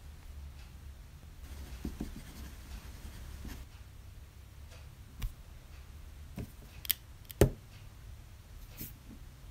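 Pencil scratching on paper for a couple of seconds, followed by a few sharp clicks and taps, the loudest about seven and a half seconds in.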